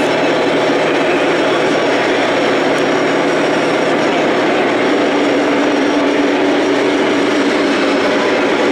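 A steady, unbroken mechanical din echoing around a large hall, with a low drone underneath and no distinct single event.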